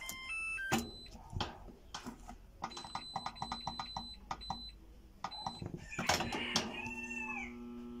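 Mabe washing machine's electronic control panel playing a short stepped beep melody, then a rapid string of clicks and beeps as the program selector knob is turned through its settings. About six seconds in, a rooster crows in the background.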